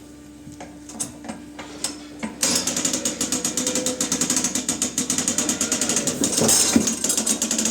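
Fast, steady ratcheting clatter from the leg-lifting winch of a cow hoof-trimming chute as the hind foot is hoisted. It starts about two and a half seconds in, after a few scattered clicks.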